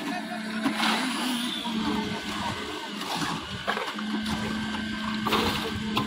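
A concrete mixer's engine running steadily with a slightly wavering hum. Several sharp knocks of iron pans and shovels can be heard over it as the concrete is loaded.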